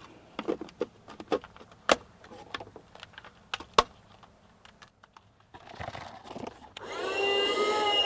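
Sharp clicks and knocks as the clear plastic canister and hose of a handheld car vacuum are handled. About seven seconds in, the Cherylon portable car vacuum's motor switches on, rising in pitch as it spins up and settling into a steady whine.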